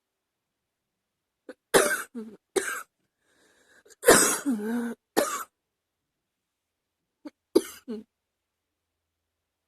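A woman's chest cough in short fits: a quick run of coughs about two seconds in, then a faint breath in and a longer, harder cough ending in a voiced rasp around four seconds in, and a last short bout near eight seconds.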